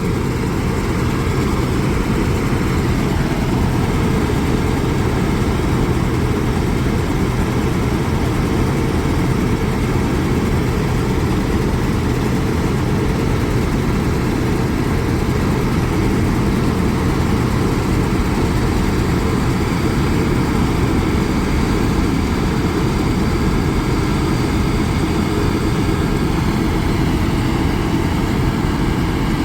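Combine harvester running steadily with its header and threshing mechanism engaged: a constant machine drone with a low engine hum.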